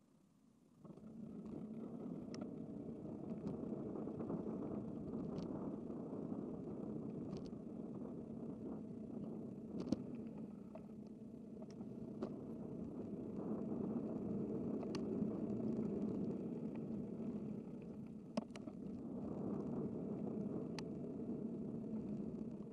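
Steady rushing road noise heard while cycling along a city street, with scattered light clicks; it comes in sharply about a second in and drops away near the end.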